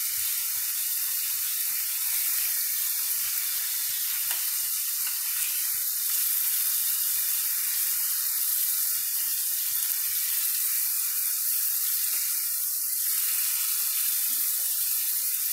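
Chicken pieces frying in hot refined oil in a nonstick pan, a steady sizzle as they brown. Light taps and scrapes of a spatula come through as the pieces are turned.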